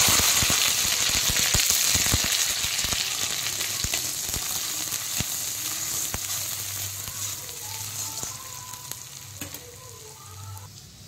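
Curry leaves and crushed garlic sizzling in hot oil with cumin seeds and onion in a kadhai. It is loudest at first, with many sharp spattering pops, then a metal spatula stirs through it and the sizzle slowly dies down.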